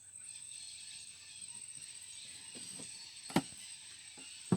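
Faint steady insect buzzing with a thin high whine, and two sharp knocks a little over a second apart near the end.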